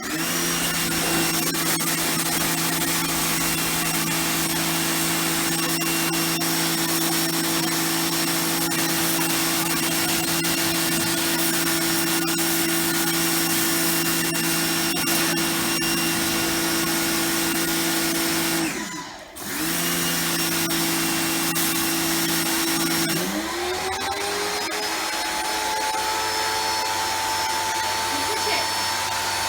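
Titan TTB66PRW electric pressure washer's motor and pump running with a steady hum. It cuts out briefly and restarts about two-thirds of the way through, then a few seconds later its pitch rises and settles at a higher steady note.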